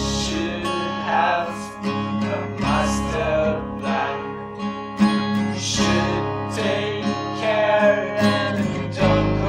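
Music: a strummed acoustic guitar playing steadily.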